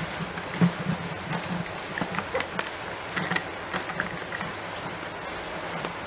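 A cloth rubbing and wiping over the plastic lid of a wet/dry shop vacuum, with scattered light plastic taps and clicks as it is handled.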